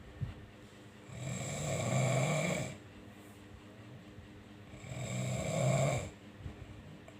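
A sleeping person snoring: two long snores, each with a low buzz, about three and a half seconds apart.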